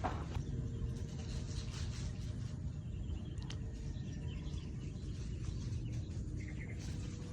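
Outdoor background noise: a steady low rumble with scattered faint rustles and clicks, and a brief faint chirp near the end.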